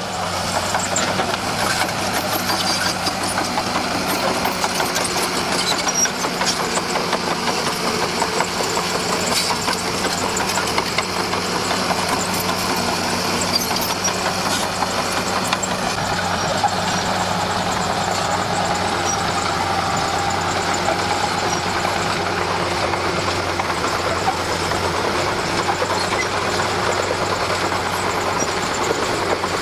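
Komatsu D41P bulldozer's diesel engine running steadily, with a constant rattle over the engine note.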